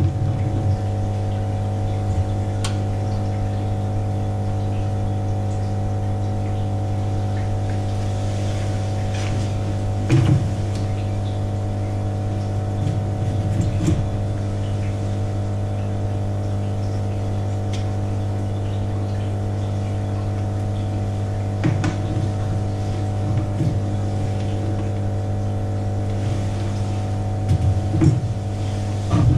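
Steady low machine hum made of several constant tones, such as pumps or other equipment running in an aquarium lab. A few short soft knocks sound over it, the clearest about ten seconds in.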